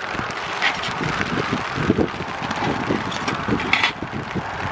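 Wind gusting on the microphone over a steady hiss, with a light metal clink near the end as a spoon is set down on a metal pot lid.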